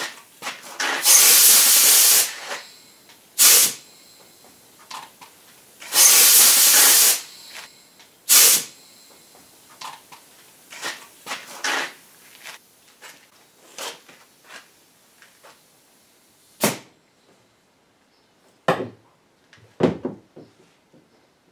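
Aerosol spray paint hissing onto a canvas in bursts: two long sprays of about a second each and two short ones in the first half. Scattered clicks and knocks from handling things follow.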